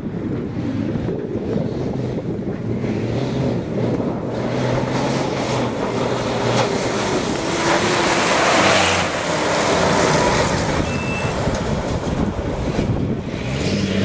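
Rally truck engine running hard as the truck drives along a dirt track, growing louder as it approaches and loudest as it passes about eight seconds in, with a rush of tyre and gravel noise.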